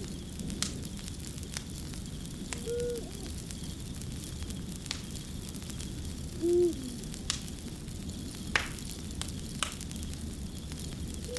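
Wood fire crackling: a steady hiss with sharp pops every second or so. A short, low hoot sounds twice, about three seconds in and again past six seconds.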